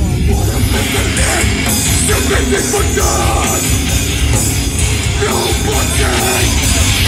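Heavy hardcore band playing live at full volume, a dense, unbroken wall of guitars and drums, heard from within the crowd.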